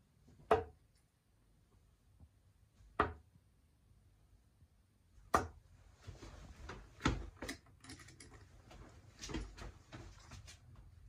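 Three darts striking a sisal bristle dartboard one after another, each a sharp thud about two and a half seconds apart. After that come a run of smaller clicks and rattles as the darts are pulled out of the board.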